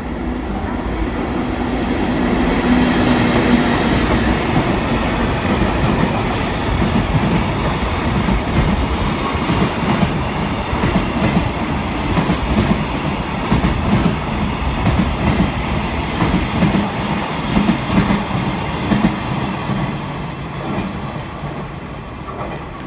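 JR freight train passing: the wagons' wheels rumble and clack over the rail joints in a run of quick clicks, building up at the start and fading away near the end.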